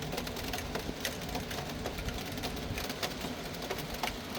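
Steady rain falling, with scattered drips and taps over a low background rumble.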